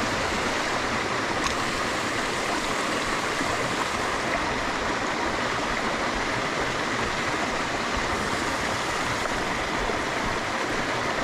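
Small mountain side stream splashing down a rocky cascade in a steady, even rush of water.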